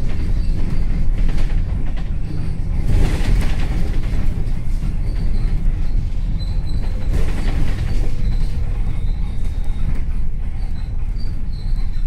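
Vehicle interior rumble of a bus in motion: a steady low drone with rattles and creaks, and two brief louder surges of noise about three and seven seconds in.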